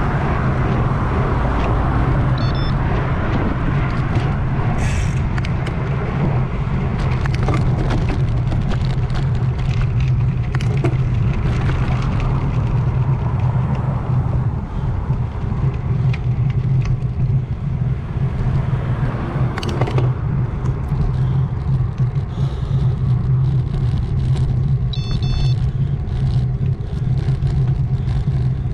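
Steady wind rush on the handlebar-mounted GoPro's microphone and low road rumble from a 3T Strada road bike rolling on pavement, with frequent small clicks and rattles.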